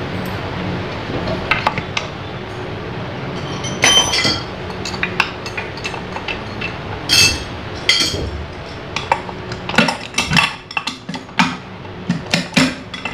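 Metal parts and tools clinking and knocking while a gondola hoist's gearbox is taken apart: a few separate knocks at first, then a quick run of clinks in the last few seconds, over a steady low hum.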